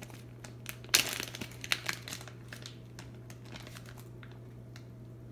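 Thin clear plastic bag around a wax melt crinkling as it is handled, in quick crackles through the first two seconds, loudest about a second in. A faint steady low hum continues throughout.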